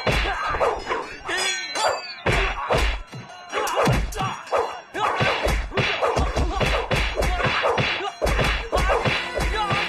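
Rapid run of kung fu fight sound effects: whacks and thuds of punches and wooden staff blows landing one after another.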